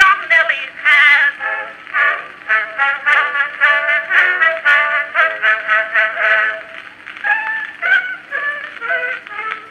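A woman singing a popular song with an accompanying band, including brass, played from an early Edison Blue Amberol phonograph cylinder. The recording's sound stops short above about 4 kHz.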